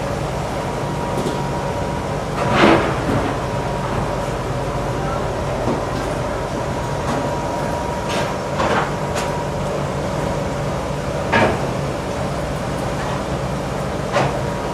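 Machinery running with a steady hum, broken by a sharp knock or clank four times, a few seconds apart.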